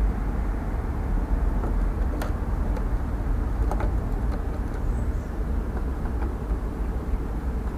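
Steady low rumble and rush of an air-conditioner outdoor unit running, its condenser fan blowing air, with a few faint clicks.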